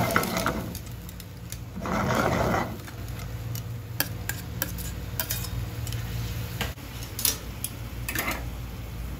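Metal tongs and a metal bowl clicking and scraping against a stainless pan of simmering tomato sauce with clams, with brief sizzling bursts about two seconds in and near the end, over a low steady hum.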